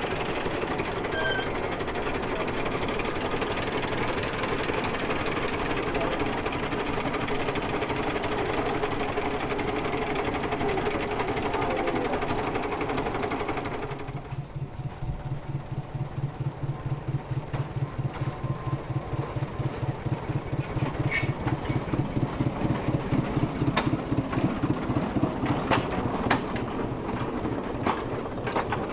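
Narrow-gauge internal-combustion locomotive engine running steadily. About halfway through the sound changes abruptly to a slow, pulsing engine beat that grows louder, with a few sharp clicks near the end.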